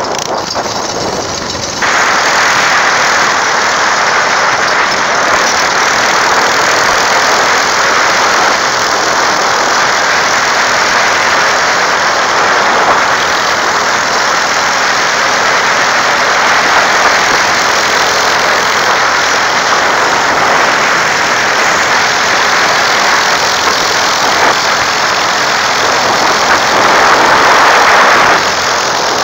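Small engine of a homemade scrap go-kart running steadily under way, mixed with road noise. It gets louder about two seconds in.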